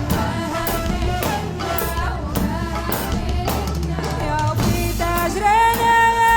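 Music: a song with drums keeping a steady beat under an ornamented melody. A long held note comes in about five seconds in.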